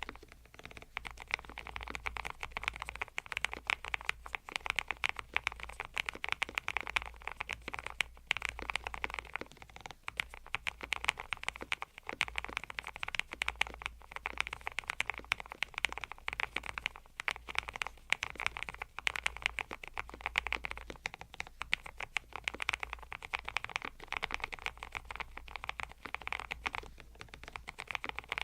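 Fast, continuous typing on an ATK YOGO75 PRO full-aluminium low-profile mechanical keyboard: a dense clatter of keystrokes with a few brief pauses.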